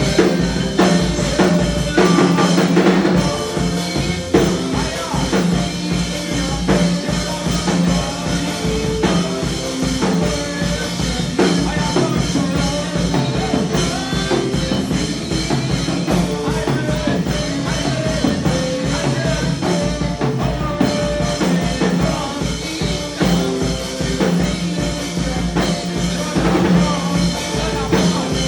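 Gospel worship music with a steady drum-kit beat and bass, playing without transcribed words between the sung prayer lines.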